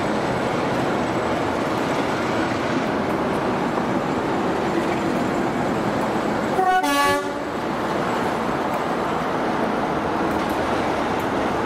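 A Class 45 'Peak' diesel locomotive's Sulzer 12LDA28-B twelve-cylinder engine running steadily as it hauls a train past. About two thirds of the way through there is one short horn toot.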